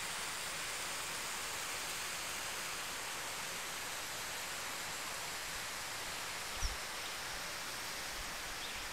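Steady rushing noise of a waterfall, with a single soft low thump about two-thirds of the way in.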